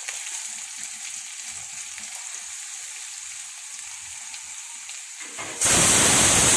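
Hot ghee sizzling softly in a kadai, then a sudden jump to a loud, steady sizzle about five and a half seconds in as sliced onions fry in the ghee.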